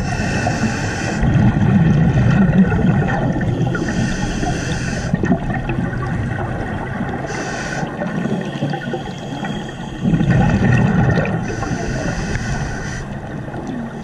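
A scuba diver breathing through a regulator underwater: long hissing inhalations alternate with rumbling, bubbly exhalations, several times over.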